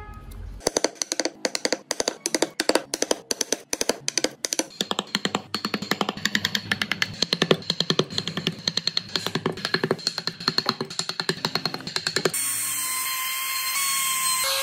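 Quick, repeated sharp taps of hand carving gouges cutting into a wooden blank, several a second. About twelve seconds in, an electric trim router starts abruptly and runs steadily with a high whine as its bit cuts into the wood.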